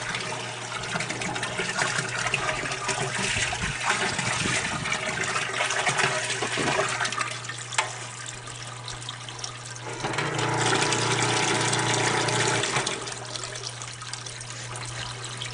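Water from a hose running steadily into the tub of an old Kenmore wringer washing machine, filling it for the rinse. A steady low hum sits underneath, and the sound grows louder for a few seconds about two-thirds of the way through.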